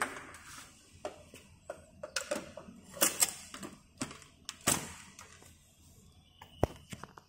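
Hard plastic clicks and knocks from a Dyson V6 stick vacuum and its battery pack being handled, scattered irregularly, the loudest about three and nearly five seconds in.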